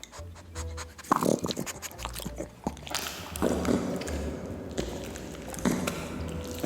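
Close-miked ASMR mouth sounds: a run of clicks, chewing and biting noises with some throaty sounds.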